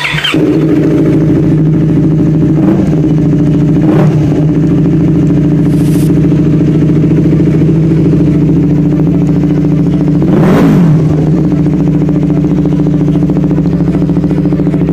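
Yamaha R3 321 cc parallel-twin engine is started through an aftermarket slip-on exhaust. It catches at once and settles into a steady idle, with short throttle blips a few seconds in and a longer rev near the ten-second mark. A marble has been fitted into an engine hose to cure its backfiring, and the owner finds it effective.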